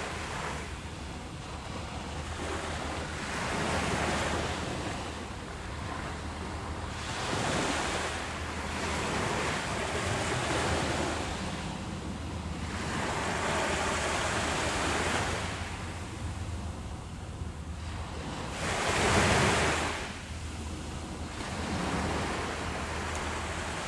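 Ocean waves breaking and washing in repeated surges every few seconds, the biggest about nineteen seconds in, over a low wind rumble on the microphone.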